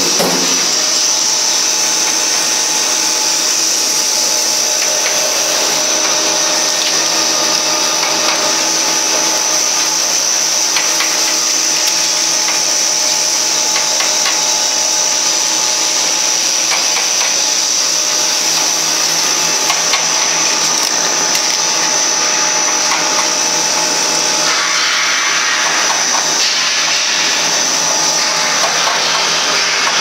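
Snack food making machine running steadily: a constant motor noise with a high-pitched whine over several steady lower tones.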